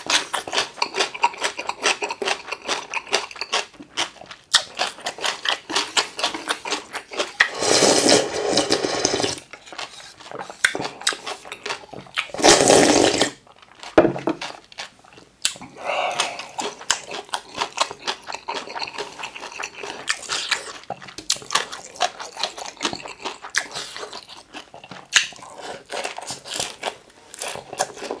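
Close-miked wet chewing of a full mouthful of curry ramen, with quick, continuous mouth clicks. Two loud slurps come from the bowl, a longer one about eight seconds in and a shorter one about thirteen seconds in.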